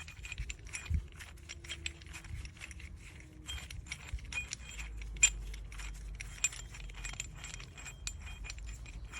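Rapid, irregular metallic clicking and clinking from a brake caliper piston wind-back tool and its adapter being worked against a rear brake caliper, pushing the piston back to make room for new pads. One sharper click stands out about five seconds in.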